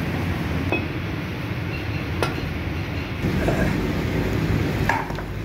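A steady low mechanical hum, with a few sharp clicks: one about a second in, one around two seconds in, and one near the end.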